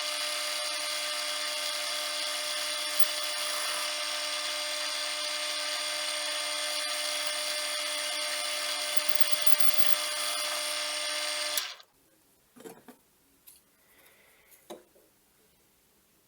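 Small metal lathe running with a steady, pitched whine, which stops abruptly about twelve seconds in; a few faint clicks follow.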